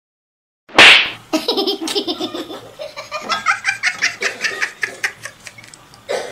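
A sudden loud hit about a second in, then a long run of rapid, high-pitched laughter.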